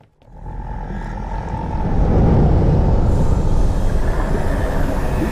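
Film sound design for an underwater sea-monster shot: a deep underwater rumble that starts suddenly, swells over the first two seconds and stays loud.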